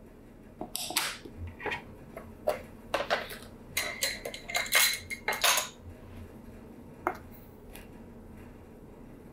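Kitchen handling noises: a clear plastic flour canister set down and opened and metal measuring cups clinking, a run of knocks and clatters from about a second in to about six seconds in, then one more click.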